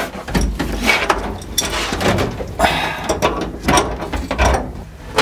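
Irregular metallic clicks and knocks of hand tools and parts being worked at an aluminium firewall.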